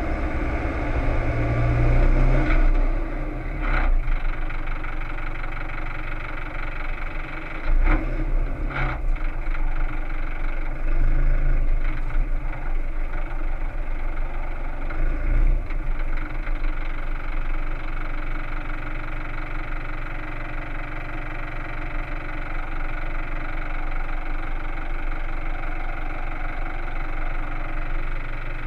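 Toyota Land Cruiser KDJ125's 3.0-litre four-cylinder turbodiesel running at low speed over a rutted dirt track, with a few knocks as the vehicle jolts over the ruts. From a little past halfway it settles into a steady idle.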